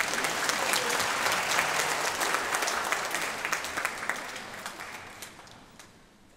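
Audience applauding, the clapping thinning and fading away over the last couple of seconds.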